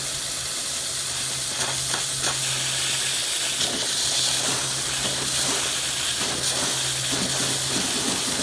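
Steady hiss of steam and water spraying from the open cylinder drain cocks of a 1/8-scale coal-fired Shay steam locomotive, clearing condensed water out of the cylinders as steam is first let into them.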